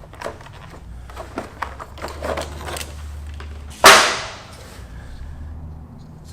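Small clicks and rattles of the Work Sharp sharpener's plastic parts being handled and fitted together, with one loud knock about four seconds in.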